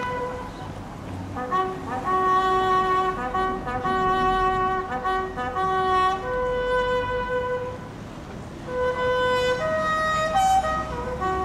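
Solo bugle sounding a ceremonial military call in a series of held notes, with a brief pause about eight seconds in.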